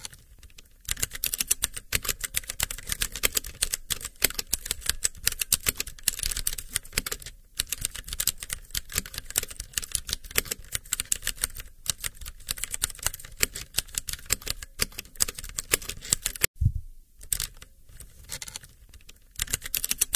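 Fast typing on a computer keyboard: a quick, steady run of keystrokes with a short pause about a third of the way in. It breaks off abruptly near the end, then picks up again shortly after.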